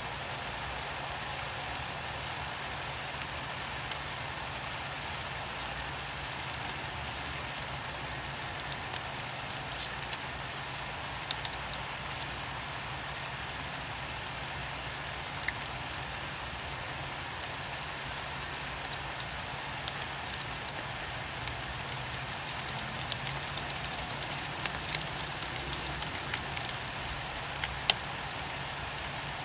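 Steady rain: an even hiss with scattered drips tapping through it. The taps come more often in the last few seconds, with one sharper tap near the end.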